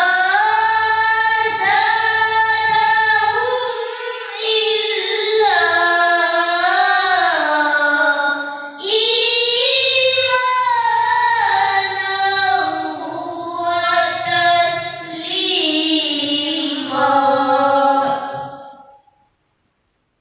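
A child reciting the Quran in the melodic tilawah style: long ornamented phrases that wind up and down in pitch, with short breath breaks about four and nine seconds in. The voice stops near the end.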